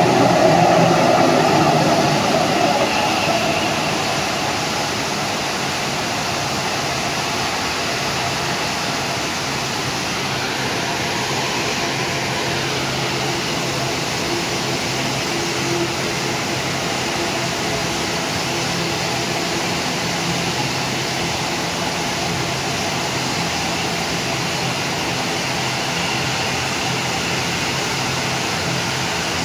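Steady rushing of a swollen, muddy river in flood, with the drone of a twin-turboprop airliner's engines and propellers as it slows on the runway and taxis. The engine sound is loudest for the first two or three seconds, then the mix settles to an even level.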